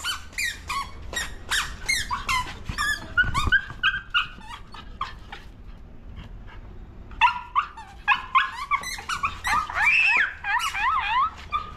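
A pet dog whining and yelping in quick high calls whose pitch slides up and down, in two spells with a quieter pause of a few seconds between them.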